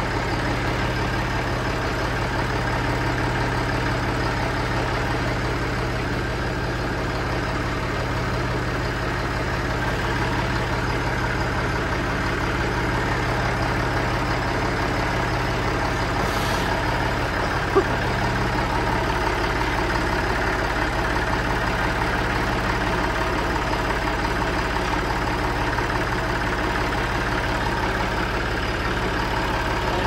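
Tractor engine idling steadily at an even speed, with one sharp tap about two-thirds of the way through.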